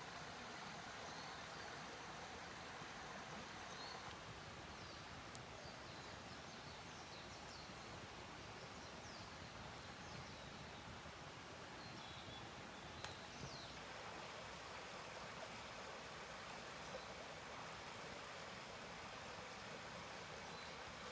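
Swedish torch of dead pine burning: a faint steady rush with a few sharp crackles and some small high squeaks.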